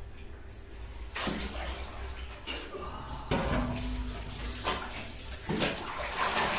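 Water splashing and pouring in a small bathroom: about six short bursts of sloshing, roughly a second apart, as water is scooped and poured for a bucket bath.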